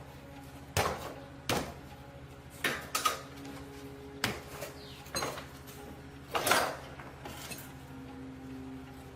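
Irregular knocks and clanks of hand-worked parts or tools, about eight of them, the loudest about six and a half seconds in, over a steady low hum.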